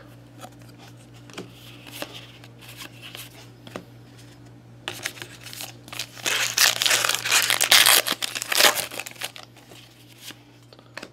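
A trading-card pack wrapper being torn open and crinkling loudly for a few seconds, starting about five seconds in. Before it come light clicks of cards being handled.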